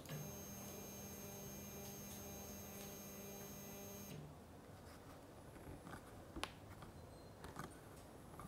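Velleman K8200 3D printer's Z-axis stepper motor turning its threaded rod through a misaligned motor-to-rod coupling: a steady hum with a high whine for about four seconds, then it stops. A few faint clicks follow.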